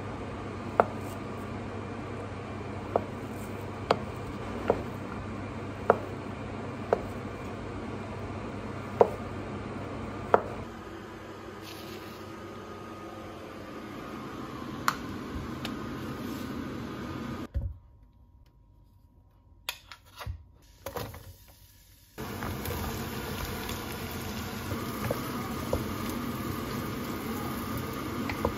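Chef's knife chopping luncheon meat on a plastic cutting board: sharp knocks of the blade on the board, roughly one a second, over a steady low hum. After a near-silent break, the diced meat sizzles in a pot on the stove as a wooden spoon stirs it.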